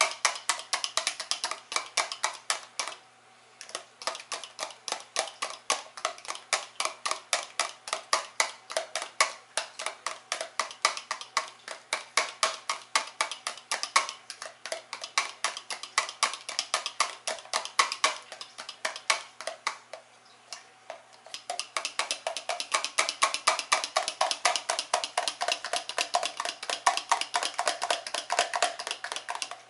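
Egg whites being beaten by hand in a small plastic container, the utensil clicking fast and evenly against the sides at about five strokes a second, with two brief pauses. The whites are being whipped until foamy.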